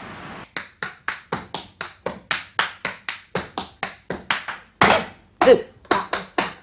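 A steady hiss cuts off about half a second in, and a dancer's feet start tapping out quick, even steps on a board, about four a second. From about five seconds in the steps come as louder, less even stamps.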